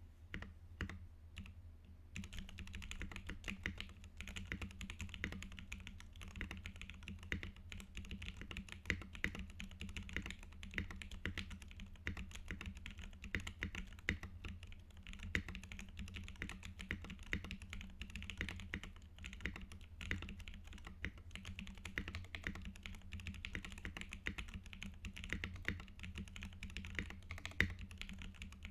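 Mechanical keyboard being typed on: a UTD 360C with an aluminium plate and Everglide Crystal Violet tactile switches lubed with Krytox 205g0. A few separate keystrokes, then fast continuous typing from about two seconds in.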